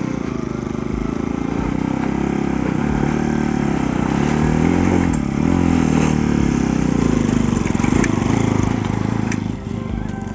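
Motorcycle engine running under varying load, its pitch rising and falling as the throttle is worked.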